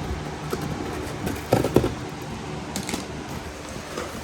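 A large cardboard shipping box being handled, giving scattered knocks and scrapes, with the loudest pair of knocks about one and a half seconds in. A steady low hum runs underneath.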